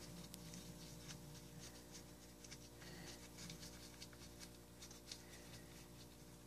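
Faint rustling and crinkling of a thin plastic rocket streamer being folded by hand, over a steady low hum.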